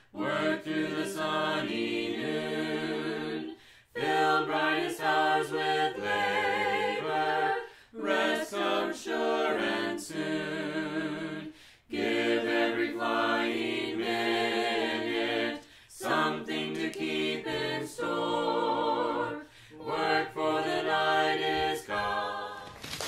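Background music: an a cappella vocal group singing in several parts, in phrases of about four seconds with short breaks between them.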